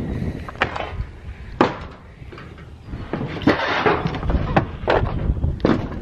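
Footsteps crunching over scattered scrap and dry debris, a sharp knock roughly once a second, over a low rumble of wind on the microphone.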